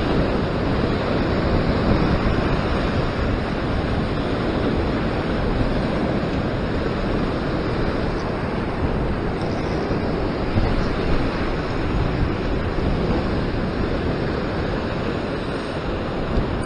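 Heavy surf breaking and washing over a rocky shore ledge: a steady rush of churning whitewater.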